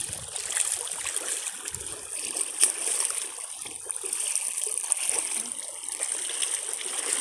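Shallow stream running over pebbles, a steady rush of flowing water, with one short click about two and a half seconds in.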